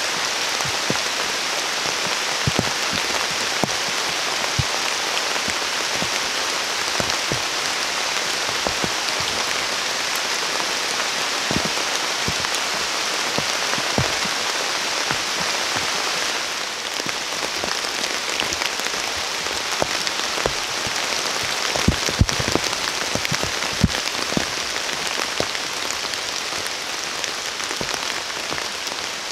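Heavy rain falling steadily, a constant hiss studded with scattered louder drops landing close by. The rain noise dips a little about halfway through.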